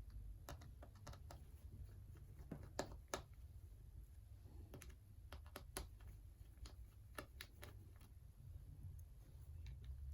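Faint, irregular small clicks and taps of a pry tool against an opened iPad as its flex-cable connectors are unclipped, several of them in quick pairs.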